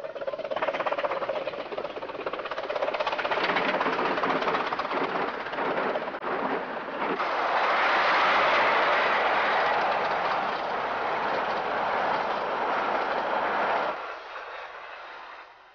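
A 15-inch gauge miniature steam locomotive and its train running toward and past the trackside, getting louder. The sound drops away sharply about two seconds before the end.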